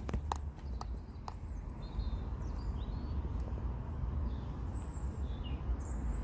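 Small birds chirping faintly over a steady low outdoor rumble, with a few clicks of the handheld camera being moved in the first second or so.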